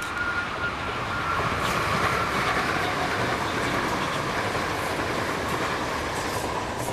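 Two coupled ScotRail Class 320 electric multiple units passing close by: a steady rush of wheels running on the rails.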